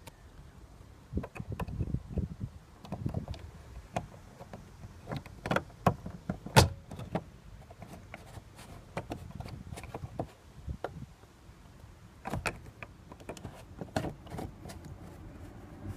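Hands fitting a VW Golf Mk4 fuel pump module and its plastic lock ring into the tank opening: scattered plastic clicks, knocks and rubbing, the loudest a sharp knock about six and a half seconds in.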